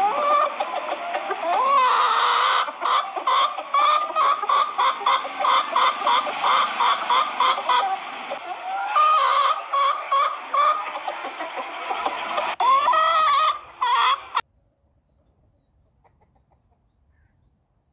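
Chickens clucking and cackling, with runs of rapid repeated calls a few per second and several rising and falling squawks. The calls cut off suddenly about 14 seconds in, leaving near silence.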